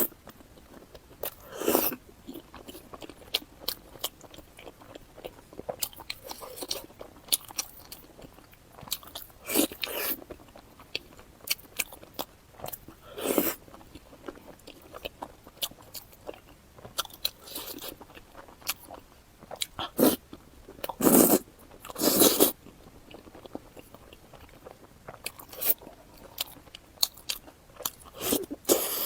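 Close-miked eating: crunchy bites into a fried dough stick (youtiao) coated in sesame paste, followed by chewing. A handful of louder crunching bites are spread through, with soft chewing and wet mouth clicks in between.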